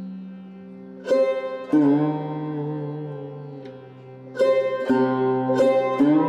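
Background instrumental music: plucked string notes that ring and fade, over a held low drone.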